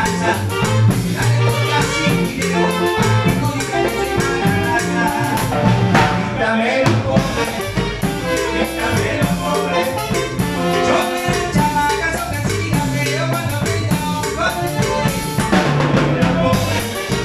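Live band rehearsal of a Latin tropical dance tune: electric bass, congas and a drum kit playing a steady groove together.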